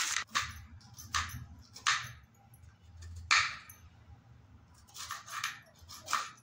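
Kitchen knife cutting spring onions on a plastic chopping board: a few separate sharp knocks at uneven intervals, with a short cluster about five seconds in.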